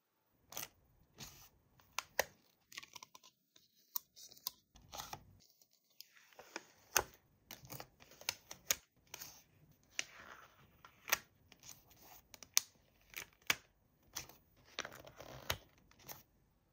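Toy packaging being opened and handled: irregular sharp clicks and taps mixed with crinkling and tearing of plastic and cardboard.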